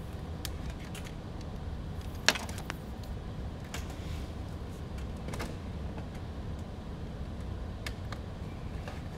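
Small items handled on a workbench: scattered light clicks and rattles, with one sharp click a little over two seconds in. Underneath is the steady hum of a Ryobi portable fan running.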